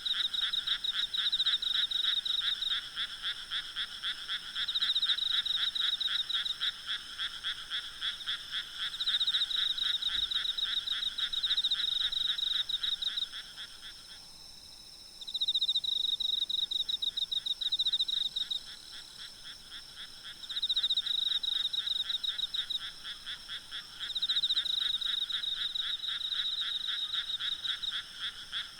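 Night chorus of frogs calling in rapid pulsed trills that come in bouts of a few seconds, briefly dropping away about halfway through, over a steady high chirring of insects.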